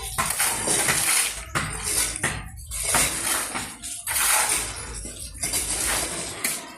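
Metal shovels scraping and clanking against concrete and iron pans, in irregular scraping strokes with short breaks between them.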